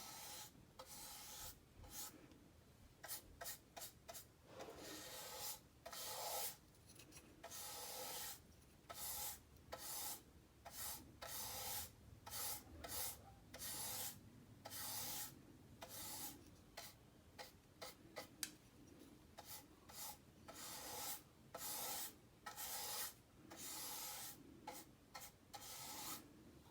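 Repeated short rubbing strokes over a plastic airsoft magazine as paint is worked onto its surface, coming in uneven bursts with brief pauses.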